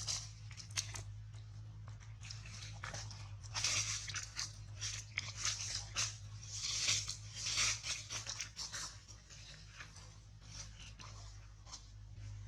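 Irregular crunching and rustling, busiest in the middle stretch, over a steady low hum.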